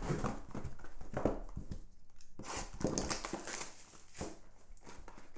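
Cardboard trading-card boxes being handled and opened: irregular rustles, scrapes and light taps of cardboard against hands and table.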